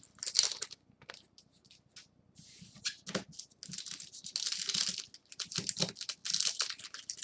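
Trading card pack wrappers crinkling and tearing as packs are ripped open and the cards handled, in irregular rustling bursts.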